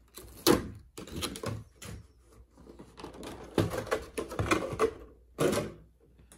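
Clear plastic blister packaging crackling and clicking as tape is peeled off it and the plastic shell is worked open, with a couple of sharp plastic snaps, one about half a second in and another near the end.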